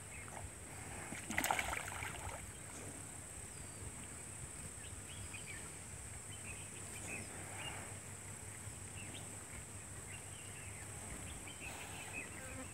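Water buffalo wallowing in a muddy pond: soft water sloshing and lapping as they shift, with one brief splash about a second and a half in. A steady high-pitched hiss and faint scattered chirps run underneath.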